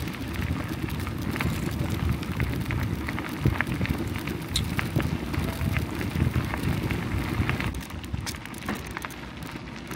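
Bicycle tyres rolling over a gravel path with a crunching crackle of small stones, under a gusting rumble of wind on the microphone from riding; the rumble eases a little near the end.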